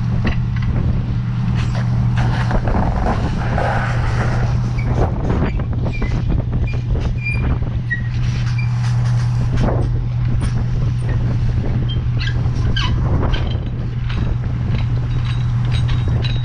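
Fire engine's diesel engine running steadily with a constant low drone, with scattered clicks and knocks over it.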